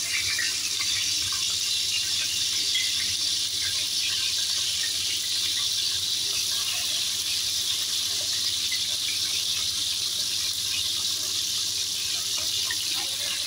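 Chicken pieces frying in hot oil in an aluminium pan: a steady sizzling hiss.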